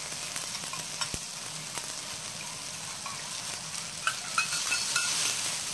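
Onion and sauce mixture sizzling in a hot wok while a stainless steel spatula scrapes and taps against the pan. About four seconds in, more brown seasoning liquid is poured in, and the sizzle grows louder with a cluster of ticks.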